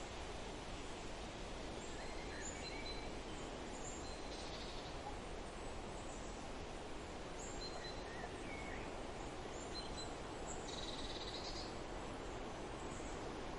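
Steady wind through a forest with scattered songbird calls: short high whistles and chirps, and a brief rapid trill twice, about four seconds in and again near eleven seconds.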